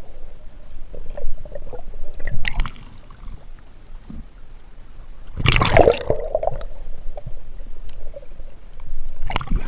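Water gurgling and sloshing around a camera held underwater, muffled, with rushing surges about 2 s in and a louder one about 5.5 s in.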